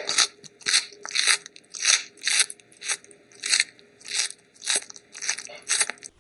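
Rhythmic crunching, about two crunches a second, evenly paced.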